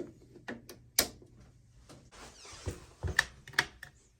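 Scattered sharp clicks and knocks: one loud click about a second in, then a few more around three seconds in.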